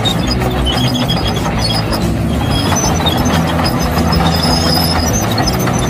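Komatsu D65P crawler bulldozer's diesel engine running under load as it pushes soil, with high squeals from its steel tracks coming and going.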